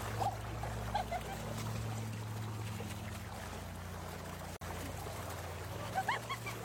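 Pool bubbler jet splashing and churning as a golden retriever bites into the spray, over a steady low hum. A few short rising squeaks sound near the start and again about six seconds in.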